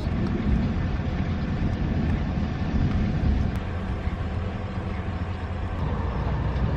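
Steady low rumble of a vehicle's engine running, with no sharp cracks or changes.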